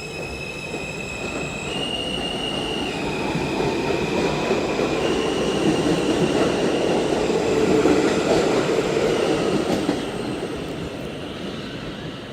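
R160 subway car heard from inside while it runs between stations: its propulsion whine steps up in pitch twice as it gathers speed, under wheel-on-rail rumble and grinding that grows, is loudest a few seconds before the end, then eases.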